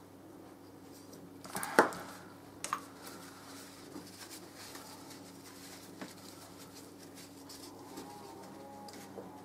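Small metal airbrush parts being handled during cleaning: a sharp clack about two seconds in as the airbrush body is set down on the table, a lighter click just after, and a few faint ticks later, over a low steady hum.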